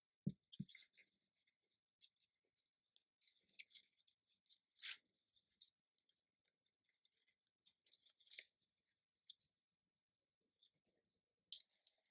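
Faint handling of card and paper: scattered light rustles and small ticks, with two soft knocks just after the start.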